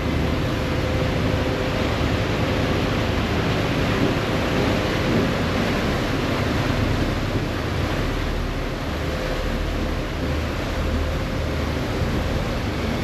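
Passenger ferry under way: a steady low engine drone under the rush of water along the hull and wind on the microphone, with a faint steady whine above the drone.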